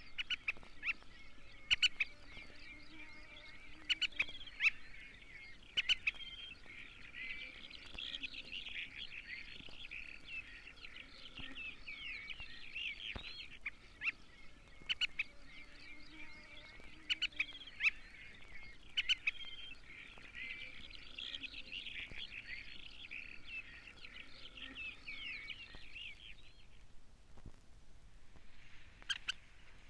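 Black-winged pratincoles calling together: many sharp, quick chattering calls overlap in a dense chorus that dies away about 27 seconds in. Scattered vinyl record clicks sound throughout.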